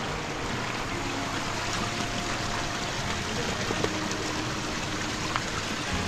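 Mountain stream running over rocks and logs: a steady wash of flowing water.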